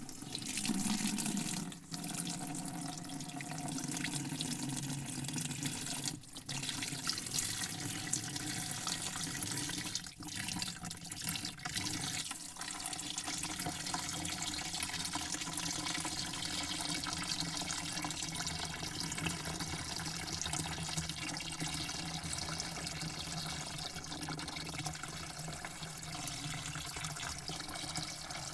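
Water spraying into a bucket in a steady, hissing stream, with the bucket's hollow ring in the sound. The spray breaks off briefly a few times in the first half.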